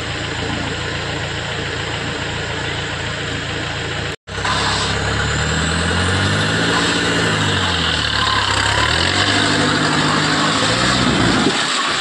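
Competition off-road 4x4's engine pulling under load as the truck crawls up a steep mud bank, revving up and dropping back twice in the second half. There is a brief gap in the sound about four seconds in.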